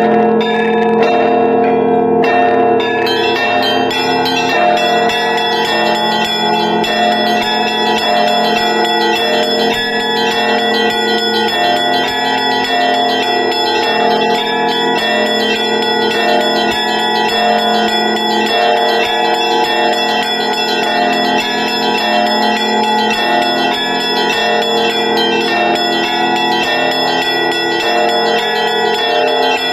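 Russian Orthodox church bell ringing (zvon) from a monastery belfry. Many bells of different sizes are struck in a fast, continuous peal, with deep bells sounding beneath quick strokes on the small bells.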